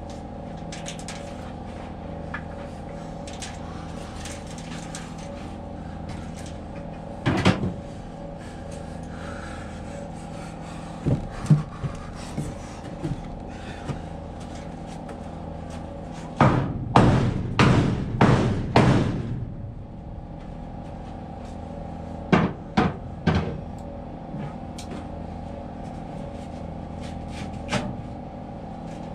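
Portable generator engine running steadily, powering the air compressor for a nail gun. Sharp knocks cut through the hum now and then, with a quick cluster of loud strikes a little past the middle.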